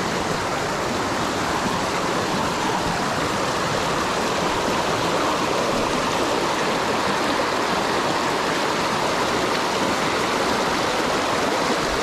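Steady rush of a rocky mountain stream, water running over stones with an even, unbroken noise.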